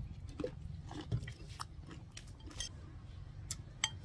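Close-up chewing of crisp raw green mango with shrimp paste: a run of short, wet crunches. Near the end a metal spoon clinks against the ceramic plate.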